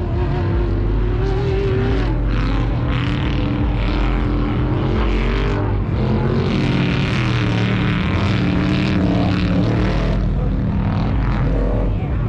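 Loud engines revving hard, their pitch rising and falling over a steady low rumble.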